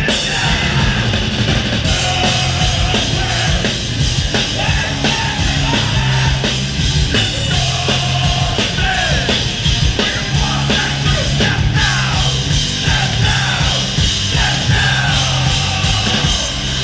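Loud live hardcore punk band playing: distorted guitars, bass and drums under shouted vocals.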